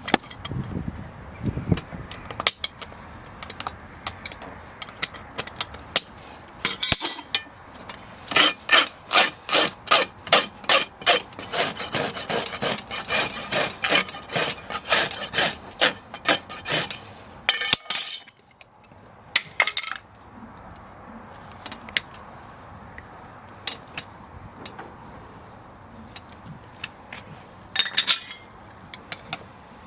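Farrier's rasp filing a horse's hoof: rough scraping strokes, with a steady run of about two strokes a second through the middle, then quieter, more scattered rasping.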